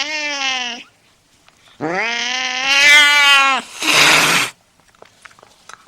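Angry domestic cat yowling: a drawn-out call ending in the first second, then a longer yowl that swells in the middle, followed at once by a short harsh hiss.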